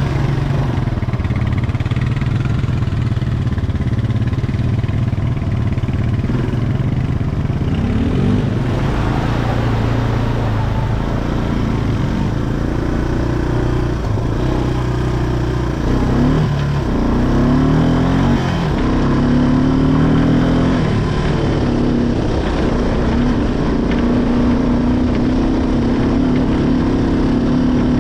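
ATV engine running hard as it is ridden, its pitch rising and falling again and again as the throttle is worked, over a steady low drone.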